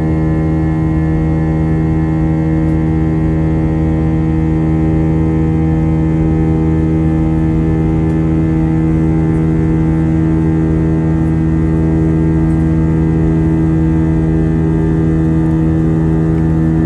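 Airbus A320 jet engine and airflow heard inside the passenger cabin during climb-out: a loud, steady drone with several steady humming tones.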